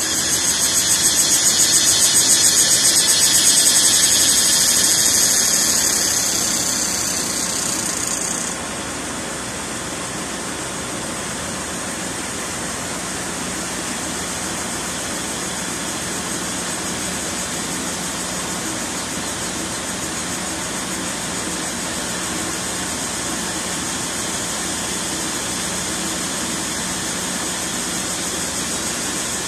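Cicadas chorusing loudly. One nearby cicada's fast-pulsing, high buzz swells and fades, then cuts off suddenly about eight seconds in. A steadier background chorus carries on behind it.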